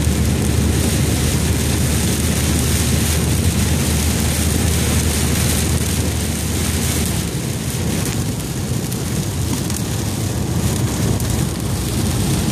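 Heavy rain on a moving car, heard from inside the cabin: a steady hiss of rain and tyre spray over a low road rumble that drops away about seven seconds in.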